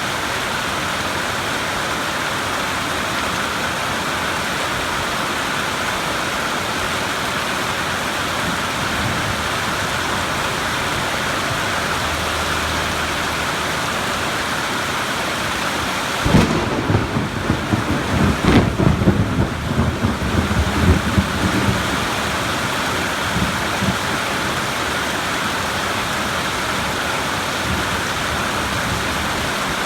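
Steady rain falling, with a sudden clap of thunder a little past halfway that rumbles for several seconds before dying back into the rain.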